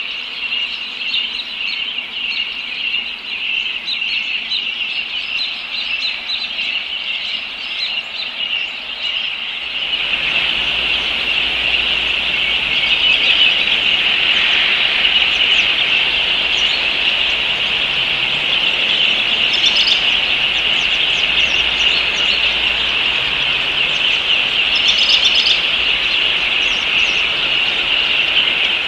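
A dense, steady chorus of birds chirping outdoors. It grows louder about ten seconds in, and a few higher calls stand out near the end.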